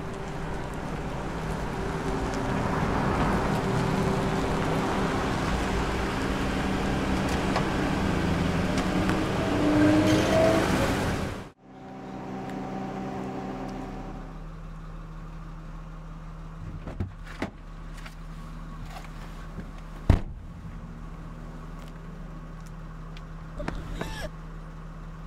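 A car approaching: its engine and tyre noise grow steadily louder, with the engine note rising near the end, then cut off abruptly about halfway through. After that, a low steady hum with several sharp clicks, one much louder than the others.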